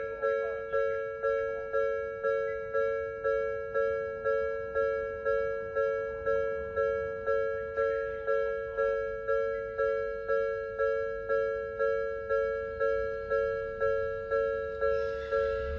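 Japanese level-crossing alarm ringing: an electronic two-tone bell striking evenly, about three strikes every two seconds, each strike ringing out before the next. A hiss joins in near the end.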